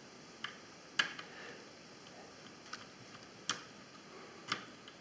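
Small screwdriver and tiny screws clicking against the plastic frame of a mini quadcopter, a handful of sharp ticks a second or so apart as the transmitter screws are worked out.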